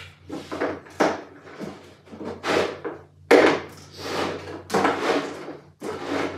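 A string of short knocks, scrapes and clatters, roughly one a second, as things are handled and set down in a workshop, over a faint steady low hum.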